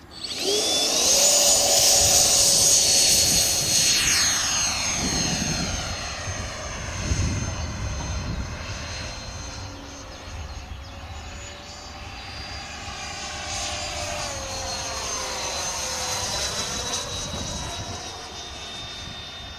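Electric ducted fan of a Freewing Avanti S radio-controlled model jet spooling up sharply to full throttle for takeoff, then a steady high whine. It is loudest in the first few seconds, fades, and swells again as the jet flies away and back.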